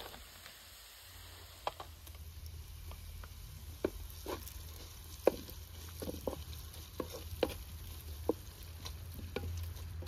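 Chopped vegetables frying in a wide metal pan over a wood fire, stirred with a spoon that knocks and clinks against the pan at irregular moments.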